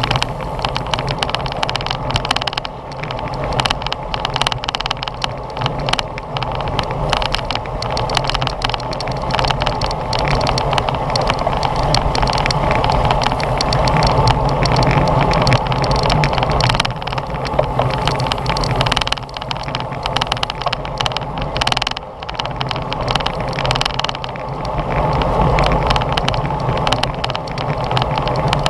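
Wind rushing over a bike-mounted GoPro's microphone during a road bicycle race, with tyre and road noise and a constant run of sharp rattling clicks.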